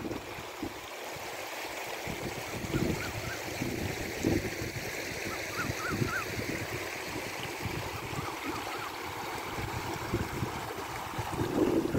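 Floodwater flowing, a steady rush and gurgle of muddy water spilling over fields and a track.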